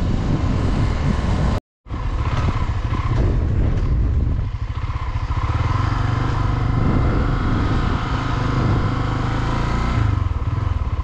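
Honda Twister 250's single-cylinder engine running while the motorcycle is ridden. The sound cuts out completely for a moment just under two seconds in.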